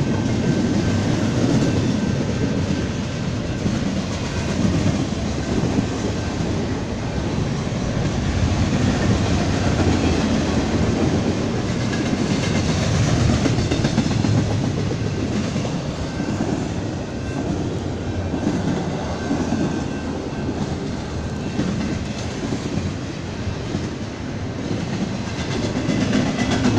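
Double-stack container well cars of a freight train rolling past steadily, a continuous noise of steel wheels on rails.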